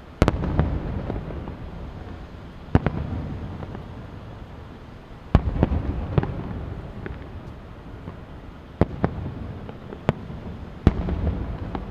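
Distant aerial firework shells bursting: about seven sharp booms a second or few apart, each trailing off in a low rolling rumble.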